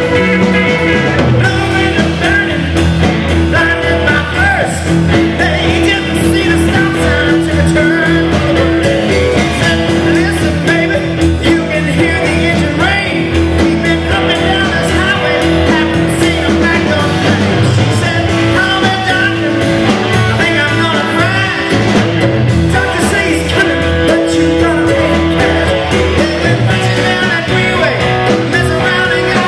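Live rock band playing a rock-and-roll number: electric guitar, electric bass, drum kit and keyboards, with a man singing the lead vocal.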